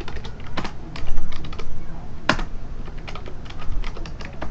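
Fast keyboard typing: rapid, irregular key clicks, with a few louder key strikes about a second in and again past the middle.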